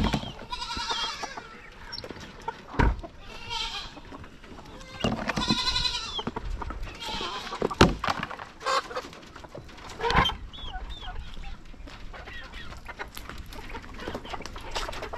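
Goats bleating in long wavering calls, loudest near the start and again about five seconds in, with chickens clucking and chirping and a few sharp knocks.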